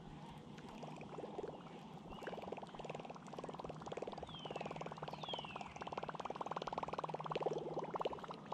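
Baitcasting reel cranked in short spells during a topwater retrieve: a fast whirring click that grows louder near the end. A bird gives two falling whistled calls in the middle.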